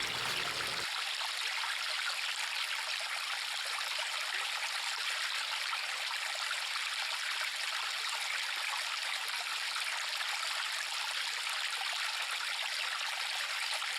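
River water flowing: a steady, even rush of water, mostly high in pitch.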